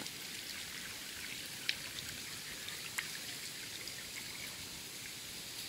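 Spinning reel on a light picker rod being wound in as a small fish is reeled to the bank: a faint steady hiss with a couple of small ticks.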